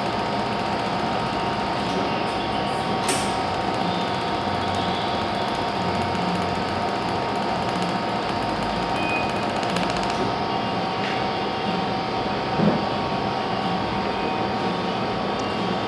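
Laser welding machine running: a steady mechanical hum with several fixed tones and a very high whine that drops out briefly about two seconds in and stops about ten seconds in. A sharp click comes about three seconds in and a short knock near the end.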